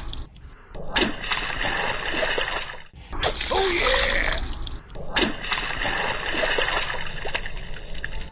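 Water splashing and sloshing, broken into short segments by abrupt cuts about a second, three seconds and five seconds in.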